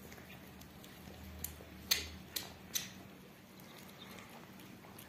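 Kittens and a mother cat eating roast chicken off a platter: faint chewing with a few sharp clicks, three close together about two seconds in.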